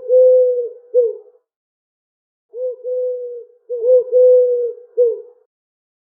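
Pigeon cooing: two phrases of coos, each made of short rising-and-falling notes and longer held notes, the second phrase starting about two and a half seconds in.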